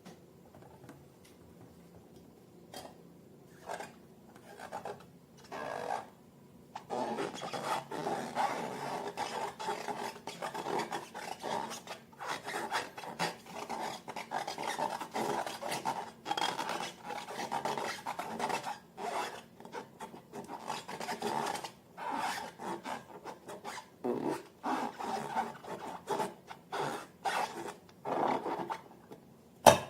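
Slime being mixed and worked by hand: a dense, uneven rubbing and scraping that starts about seven seconds in after a few soft touches, with one sharp loud snap near the end.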